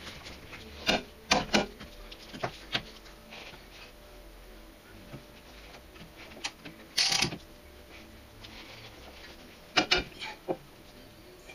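Scattered knocks and clicks of car front-suspension parts being handled: the steering knuckle and hub being worked off the front strut, with one longer metal scrape about seven seconds in.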